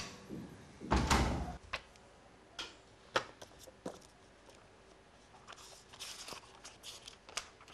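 Light handling noises in a quiet room: a short rustling scrape about a second in, then scattered small clicks and knocks.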